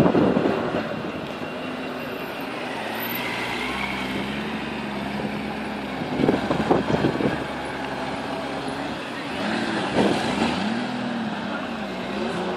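Honda GL1500 Gold Wing's flat-six engine running at low revs at walking pace, its pitch rising and falling gently with small throttle changes. Two brief louder bursts of noise come about six and ten seconds in.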